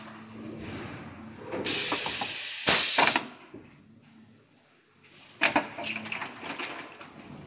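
Injection moulding machine cycling a 12-cavity flip-top cap mould. A loud hiss of compressed air comes for about a second and a half as the mould opens. About five and a half seconds in there is a sharp clack and a run of clicks as the in-mould closing system snaps the caps shut and ejects them.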